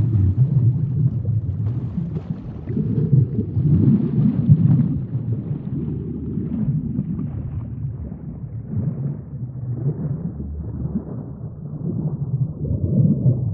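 Underwater sea ambience: a deep, rumbling wash of water that swells and eases every second or two, with a fainter hiss above it that thins out toward the end.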